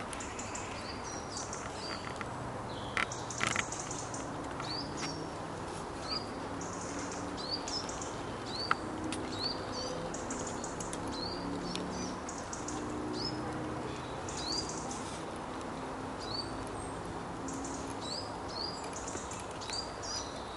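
A small bird calls over and over in short rising chirps, about one a second. Alongside, a grey squirrel gnaws at a nut in short scratchy bursts, with a few sharp clicks about three seconds in and again near nine seconds.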